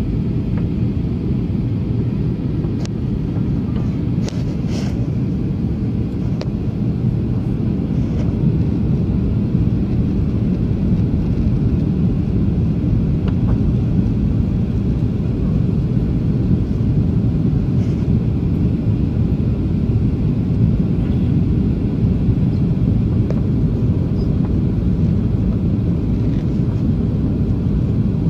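Steady low rumble inside a jet airliner's cabin on descent toward landing: engine and airflow noise through the fuselage, with a few faint clicks about three to five seconds in.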